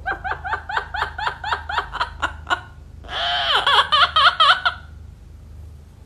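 Yellow-headed Amazon parrot imitating human laughter: a quick run of about a dozen 'ha' notes, then after a brief pause a louder burst of laughing that stops about five seconds in.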